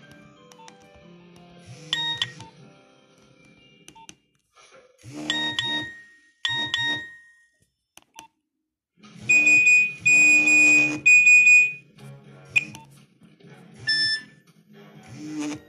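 Nokia 1110i mobile phone playing one of its built-in monophonic ringtones: short phrases of electronic beeping notes separated by pauses, the longest and loudest phrase about nine to twelve seconds in.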